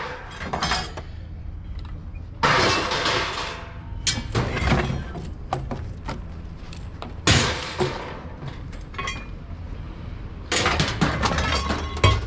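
Scrap being thrown onto a pile: three loud crashes and clatters, each about a second long, with smaller clinks between them.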